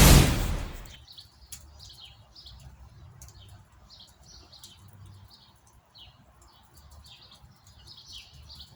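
Small birds chirping over and over in short calls. A loud burst of noise opens the sound and fades away over about a second.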